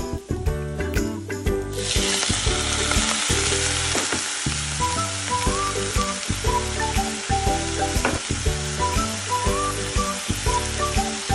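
Sliced mushrooms tipped into a hot pot of sautéing carrots, starting to sizzle about two seconds in, with a spatula stirring through the frying hiss. Background music with a steady beat plays underneath.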